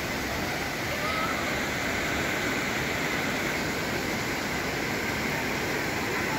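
Steady rushing noise of fast-flowing floodwater.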